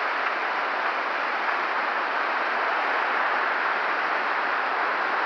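Steady rushing of a small waterfall running high after a rainstorm.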